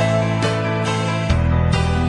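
Gentle instrumental music: plucked notes over held low notes, with a new bass note coming in a little past halfway.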